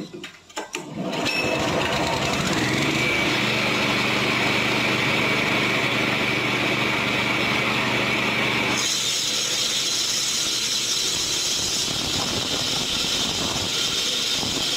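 A concrete-cutting saw's engine starts about a second in, revs up and runs steadily. About nine seconds in the sound turns harsher and higher as the blade cuts into the concrete slab, and it goes on like that.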